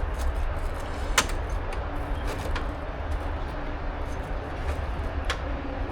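A few sharp clicks and knocks, one about a second in and one near the end, over a steady low rumble.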